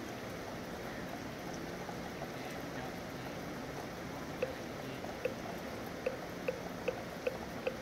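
Steady rain falling. About halfway in, a moktak (wooden fish) starts to be struck, slow at first and then quickening to an even beat of about two and a half knocks a second, keeping time for Buddhist sutra chanting.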